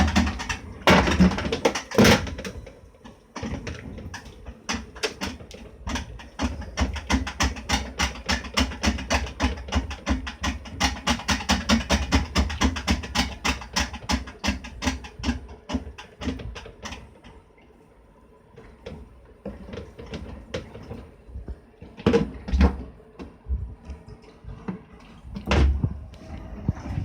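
Hitachi BeatWash BW-D8PV top-loading washing machine rattling: a rapid, regular clacking of several clicks a second, with a few heavier knocks near the start and again near the end. The owner suspects a failing clutch, the rattle coming as the drum reverses.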